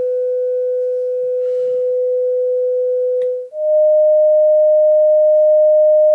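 1970 Fisher loudspeaker playing a steady 500 Hz sine test tone. About three and a half seconds in it cuts out briefly and gives way to a slightly higher steady tone, the next step of the frequency sweep.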